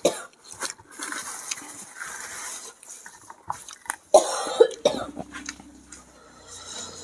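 A person coughing hard, once at the start and again about four seconds in, with hissing breaths between: coughing on hot, spicy goat satay.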